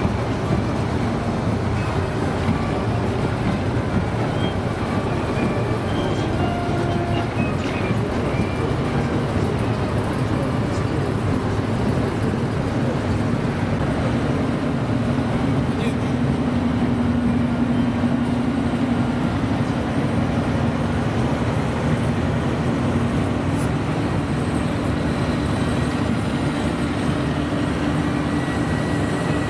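Heavy multi-axle military rocket- and missile-launcher trucks (BM-21 Grad, then BM-27 Uragan, then Iskander launchers) drive past in column, their engines running in a steady loud drone. From about halfway in, a low engine hum stands out above it.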